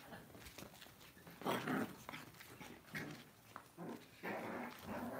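Lhasa Apso puppies making small growls and whimpers in play, in several short bursts.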